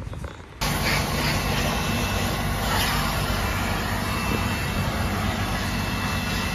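Self-service car-wash vacuum running steadily, a hum under a strong suction hiss, as its hose nozzle is worked over carpet car floor mats. It comes in abruptly just after the start.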